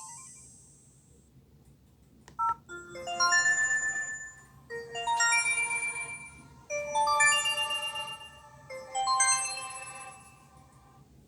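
A Nokia MIDI ringtone played through an LG B470 phone's small speaker. A click comes first, then a short melody of clear electronic notes in four phrases, each of about two seconds.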